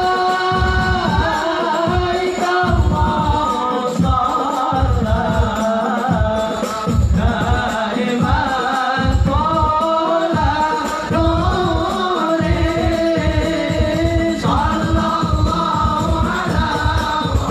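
A group of men singing a sholawat together in long, gliding held notes, with drums beating a steady rhythm underneath.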